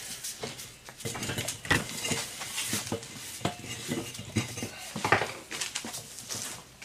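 2-inch threaded steel pipe and tee being screwed together by hand: irregular metallic clinks and scrapes as the pipe turns on its threads.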